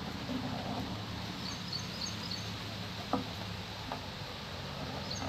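Outdoor ambience: a steady low hum with clusters of short, high, quick chirps from a small creature, and a couple of light clicks about three and four seconds in as wires are handled at the tiller's terminal.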